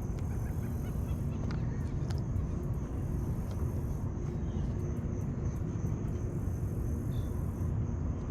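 Steady low outdoor rumble with a steady high insect drone over it and a few light clicks.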